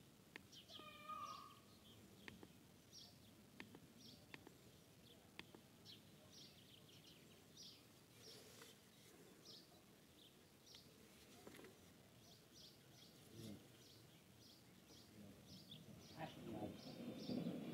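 Near silence with small birds chirping faintly, short high chirps every second or so. A soft rustle rises near the end.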